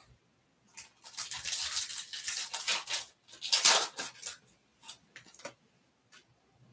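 Foil trading-card pack wrapper crinkling and tearing open: a run of scratchy crackles from about a second in, loudest a little past the middle, then a few short ticks as the cards come out.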